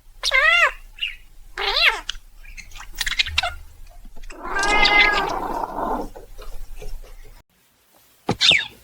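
A cat meowing three times: a short meow that rises and falls just after the start, a second short meow about two seconds in, and a longer drawn-out meow about four and a half seconds in.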